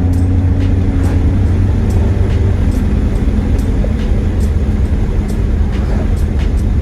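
BMW E46 330 driving on the road: steady engine and tyre-road noise with a low rumble.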